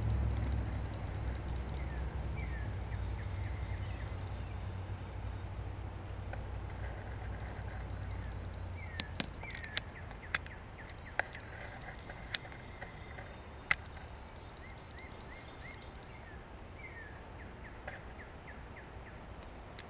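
Steady high-pitched insect drone with runs of short repeated chirps, over a low rumble that fades out during the first several seconds. A handful of sharp clicks come in the middle, the loudest a little past halfway.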